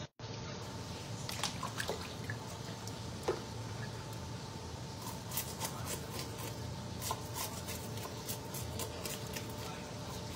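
Fish being cleaned by hand with a knife at a sink: small wet squishes, scrapes and drips, with many short irregular ticks over a faint steady hum.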